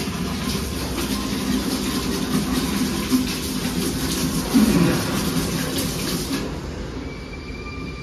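Water rushing and hissing through the toilet's concealed-cistern plumbing and bidet-spray hose as the fittings are worked on, with a knock or two partway through; the water cuts off suddenly about six seconds in.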